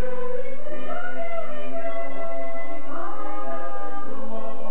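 Mixed choir of men and women singing together in harmony into handheld microphones, with long held notes.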